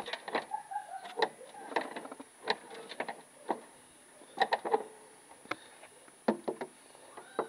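Height-of-cut adjustment lever on a Hayter Harrier 41 lawn mower being worked through its notched plate, clicking into the notches: a series of sharp, irregularly spaced clicks.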